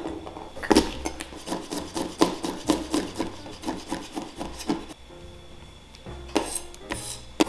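Chef's knife mincing garlic cloves on a cutting board: a quick run of chopping taps, about three or four a second, easing off about five seconds in, then a few more chops near the end.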